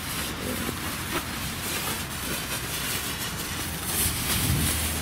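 Small Category 1 ground firework burning with a steady hissing spray of sparks and a few faint crackles. The hiss grows a little louder and brighter about four seconds in.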